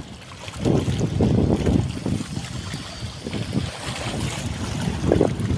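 Wind buffeting the microphone in uneven gusts, over the wash of choppy water.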